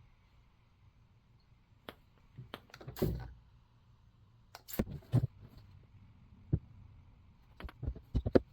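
Scattered light clicks and a few louder knocks of tools and parts being handled on a workbench, irregular and sparse.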